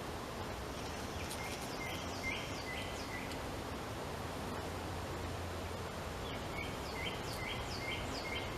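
A songbird sings twice, each song a quick run of five or six repeated chirps, over steady outdoor background noise.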